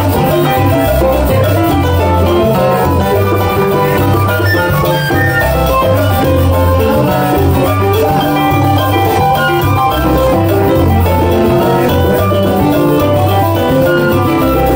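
Live parranda band playing Puerto Rican Christmas music, with guitar, keyboard and a wind instrument over a steady bass line.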